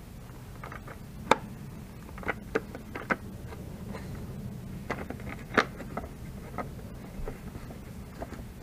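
Scattered light clicks and taps of hands handling a Dereal 62cc chainsaw's plastic housing, with the sharpest about a second in and again past the middle, over a steady low hum.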